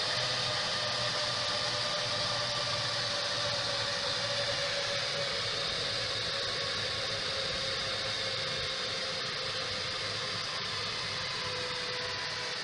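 Dell PowerEdge R720 server's cooling fans running: a steady whir with a few whining tones, slowly getting quieter.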